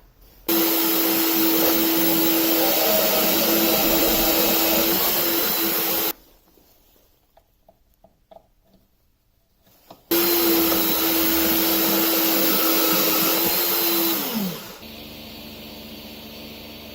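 Electric shop machine running loudly with a steady whine, cutting out abruptly for a few seconds mid-way, then running again until its whine falls in pitch as it winds down, leaving a quieter steady hum.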